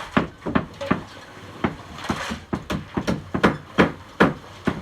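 Repeated sharp knocks of hand tools, about two or three a second and unevenly spaced, like hammer or shovel blows.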